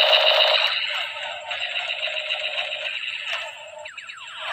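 Battery-powered toy MP5 submachine gun playing its electronic firing sound effect through its small speaker: a rapid machine-gun rattle that drops in level about half a second in, then near the end a run of repeated falling laser-like sweeps.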